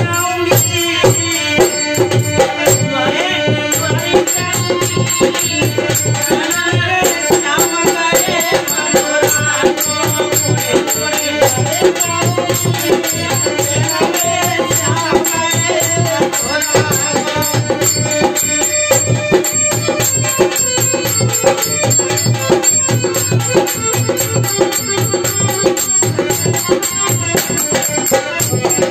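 Bhajan played live on harmonium and dholak, the barrel drum keeping a steady rhythmic beat. Male voices sing over it through roughly the first half; after that the harmonium and dholak carry on alone.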